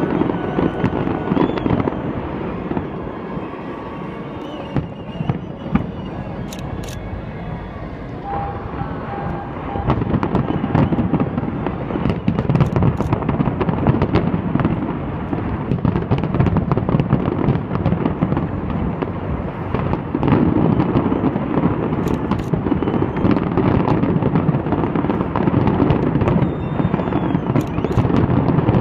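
Fireworks display: a continuous barrage of booming shell bursts and crackling, thinner for a few seconds near the start and denser from about ten seconds in.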